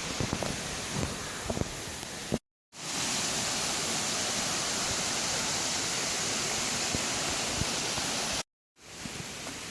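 Steady rushing water, an even hiss with no rhythm. It cuts out abruptly twice, and the quieter stretches either side carry a few soft knocks.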